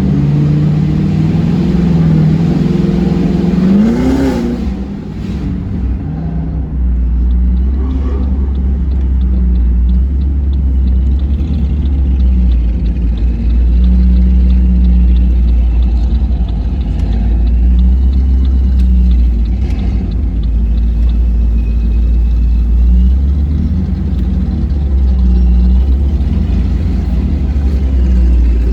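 Modified Pontiac G8's cammed LS V8 exhaust running at low speed. The engine revs up briefly about four seconds in, then settles to a steady low note.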